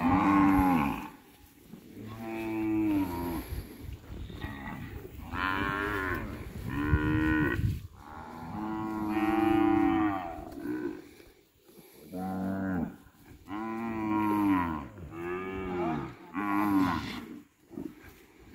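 A heifer mooing over and over: about nine or ten calls in close succession, each lasting up to a second and a half, many sliding down in pitch.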